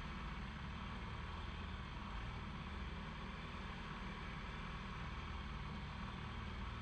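BMW R1200GS flat-twin motorcycle engine running low and steady at slow speed, with a faint hiss of road and wind noise.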